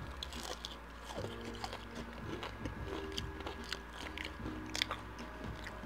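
Close-mic chewing of a crispy fried onion ring, with repeated small crunches and wet mouth sounds, over quiet background music.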